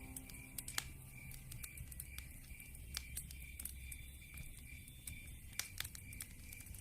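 Wood fire crackling in a fireplace: irregular sharp snaps and pops, a few louder ones about a second in, near three seconds and again near six seconds, over a low rumble of the flames.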